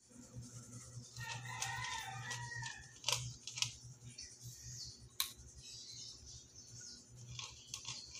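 A rooster crows once, a long call starting about a second in and lasting about two seconds, followed by a few sharp clicks.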